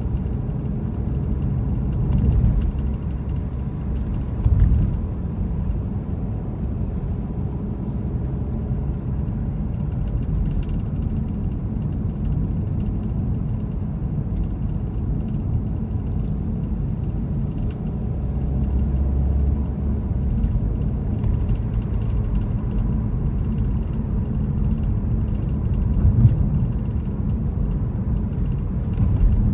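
Car driving along a city road: a steady low rumble of engine and tyres, with a few brief louder bumps.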